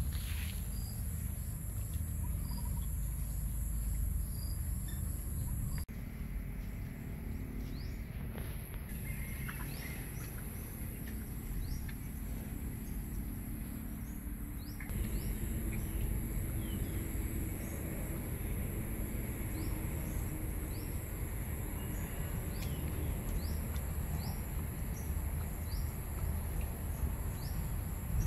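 Rural outdoor ambience: a steady high insect drone with short, repeated bird chirps over a low rumble. The background shifts abruptly twice, about six and fifteen seconds in.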